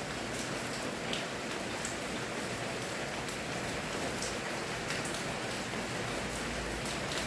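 Steady rain falling, an even hiss of rainfall with scattered drop ticks on a surface.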